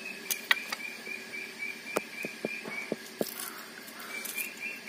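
An insect chirps steadily in a fast, even pulse. A few light knocks come in the first three seconds, and about three and a half seconds in there is a brief slosh of water as hands go into a bucket to wash the cut snakehead fish.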